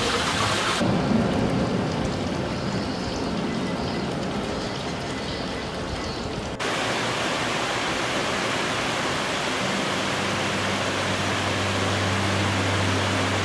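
Rushing water of a shallow river spilling over a low weir, an even steady rush that comes in on a sudden cut a little past halfway, after a quieter, duller stretch of ambient hiss. A steady low hum joins the water in the last few seconds.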